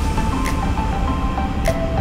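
Background music: a melody of short stepping notes with a light percussive beat, over a steady low rumble.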